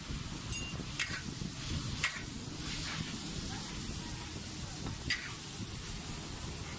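Char koay teow stir-frying in a wok: a metal spatula scrapes and knocks against the wok three times over a steady frying sizzle.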